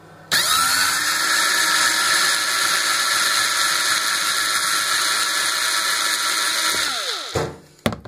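Cordless drill-driver backing out a screw: the motor spins up about a quarter second in, runs at a steady whine for about six and a half seconds, then winds down with a falling pitch. A brief click near the end.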